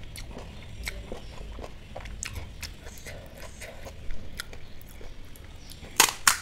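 Close-miked chewing of panipuri: soft mouth clicks and crunches. Near the end, two sharp, loud cracks as a thumb breaks into the top of a crisp puri shell.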